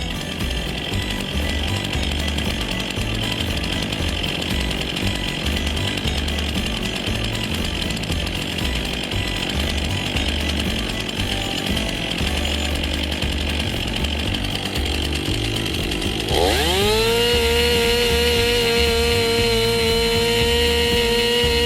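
Two-stroke chainsaw cutting into a log, its engine sound rough and noisy. About sixteen seconds in, the engine pitch rises sharply and then holds a steady high whine at full throttle.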